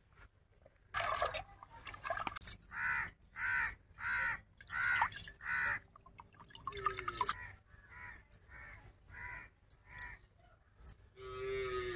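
A crow cawing five times in a steady run, about two caws every one and a half seconds, then a quieter run of about five more caws. Water sloshes and splashes now and then as leaves are rinsed by hand in a steel pot.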